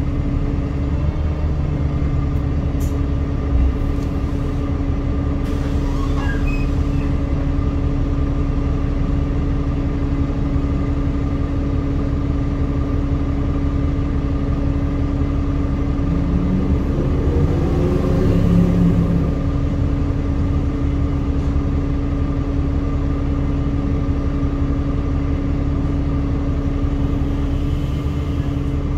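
Alexander Dennis Enviro200 MMC single-deck bus's diesel engine idling at a stop, a steady hum and rumble heard from inside the passenger saloon. A brief louder, wavering sound swells about two-thirds of the way through.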